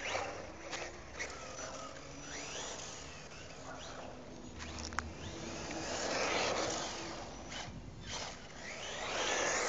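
1/10-scale electric RC buggy with a Turnigy 8.5-turn four-pole brushless motor running on the street for a warm-up, its motor whine rising and falling in pitch, with two swells of noise as it runs past and a sharp click about halfway through.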